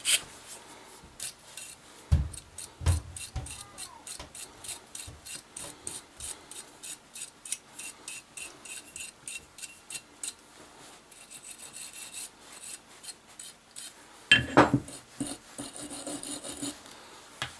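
A 12-gauge shotgun bore brush on a cleaning rod scrubbing grimy parts of a Ramset powder-actuated nail gun. It makes quick, rhythmic scraping strokes, about three a second. There are a couple of knocks about two seconds in and a louder clunk near the end.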